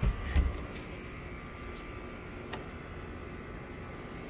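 Two dull low thumps, then a steady faint background hum with a single light click about two and a half seconds in.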